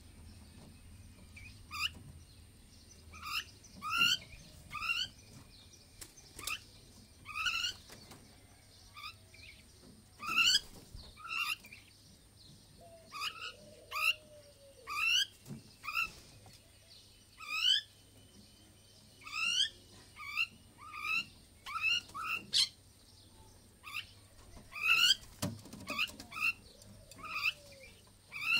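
Myna bird calling: short, sharp rising chirps repeated again and again, often two or three close together, a second or two apart.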